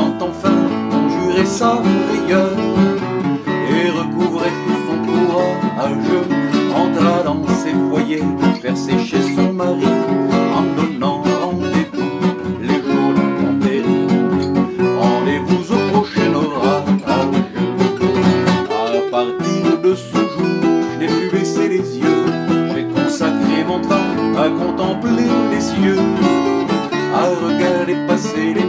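Two Selmer-Maccaferri-style gypsy-jazz acoustic guitars in an instrumental break: one strums a steady rhythm while the other plays a lead melody line.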